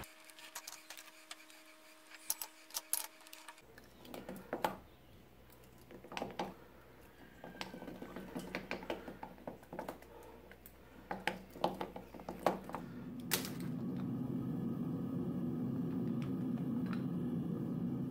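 Sharp clicks and knocks of graphite ingot molds being handled, tapped and flipped with metal tongs to release freshly cast ingots. Near the end a steady low rushing noise sets in.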